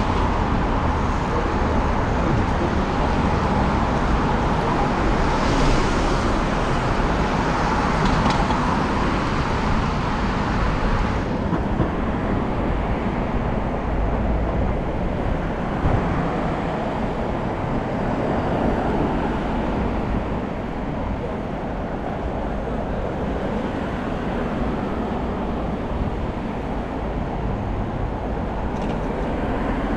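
Steady city road traffic noise of passing cars, heard from a moving bicycle with wind rumbling on the microphone; the higher hiss drops away about eleven seconds in.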